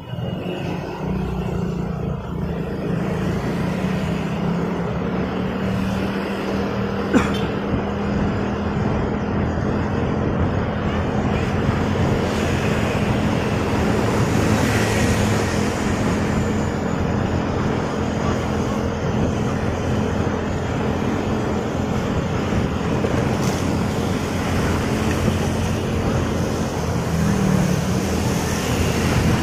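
Motorcycle engine running steadily under way, with tyre and traffic noise from a wet road. A single sharp click about seven seconds in.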